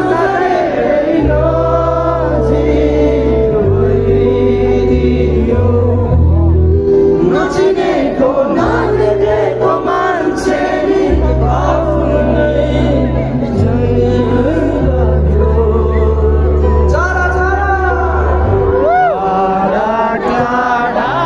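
A pop-rock song with a singing voice and a strong stepping bass line, played loud over large outdoor concert speakers.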